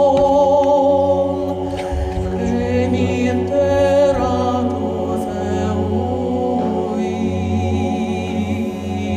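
Male voice choir singing a cappella in several parts, with long held notes over a steady low bass.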